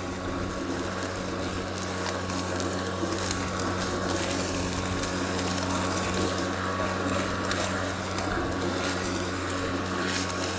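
Atlas 80V cordless brushless self-propelled lawn mower running under load while cutting grass: a steady electric hum with a faint high whine, a little louder after about two seconds.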